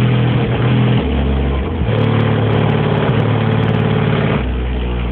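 Car stereo playing a bass-heavy song loud through three Jackhammer subwoofers: long, deep bass notes that change pitch every second or so.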